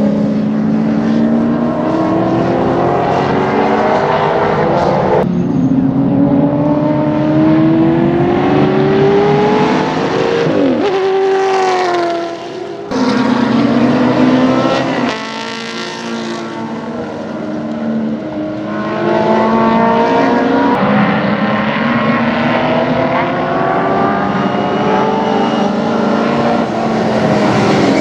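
Racing touring-car engine pulling hard through the gears: the engine note climbs, breaks sharply at each gear change and climbs again. About ten to thirteen seconds in, the pitch falls away as the car backs off and slows, then it accelerates again.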